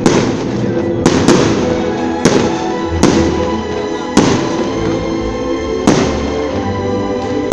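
Fireworks going off in a series of sharp bangs, about seven of them, roughly one every second, over steady music.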